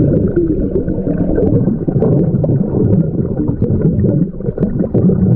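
Muffled underwater noise picked up by a submerged action camera: a steady low water rumble with irregular bubbling, all high sounds cut off.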